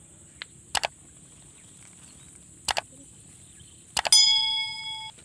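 Subscribe-button animation sound effect: a double mouse click three times, about two seconds apart, the last followed by a bell ding that rings for about a second. A steady high insect drone runs underneath.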